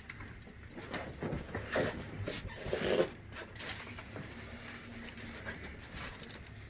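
Chiropractic neck adjustment: a quick run of sharp clicks and pops with rustling, from about one to three seconds in, the loudest near three seconds, then only faint handling sounds.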